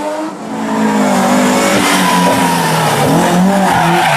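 Rally car engine revving hard as the car accelerates, growing loud about half a second in, its pitch rising and falling through the revs.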